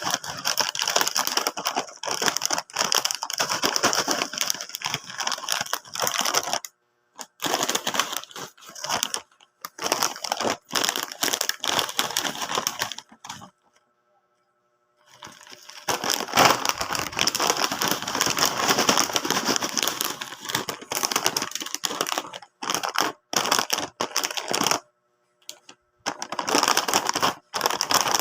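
Crisp chips being crunched and chewed close to the microphone, in bursts of crackling with short pauses and a silent stretch of about two seconds near the middle.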